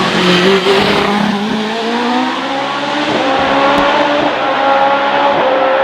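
Hillclimb race car's engine at high revs, accelerating hard up the hill, its note climbing steadily in pitch.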